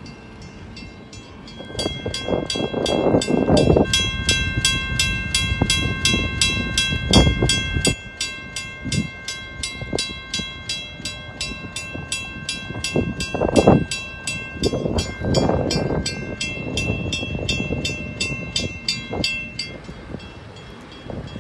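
Electric drawbridge warning bell, a Western-Cullen-Hayes bell, ringing steadily at about three strokes a second while the bridge is in operation. It starts about two seconds in and stops shortly before the end. Several loud low rumbles and thumps sound under it.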